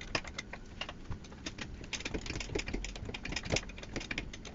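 Rapid, irregular metallic clicking and clinking of an 18mm wrench working the rear brake caliper bracket bolts loose, getting busier about halfway through.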